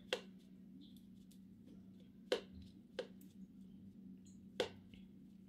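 Metal teaspoon clicking against a plastic Horlicks tub and the blender jug rim as the powder is scooped out: a few faint, sharp clicks spread out, the loudest a little over two seconds in.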